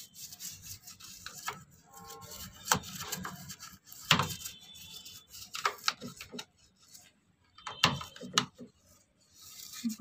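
Toothbrush with detergent scrubbing inside the plastic drain-filter housing of an IFB front-load washing machine: irregular brushing and scraping strokes, with a short pause about seven seconds in and another near the end.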